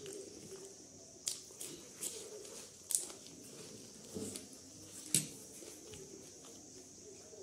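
Chewing mouth sounds of a person eating noodles and boiled eggs: about six short, wet smacks and clicks spread over the first five seconds.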